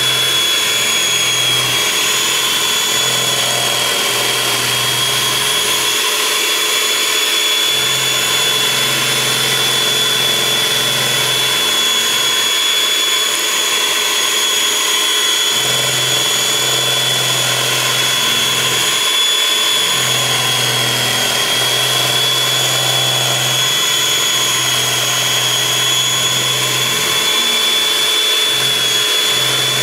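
Electric hand mixer running steadily with a constant high whine, its twin beaters churning a runny batter of sugar, oil and eggs in a glass bowl.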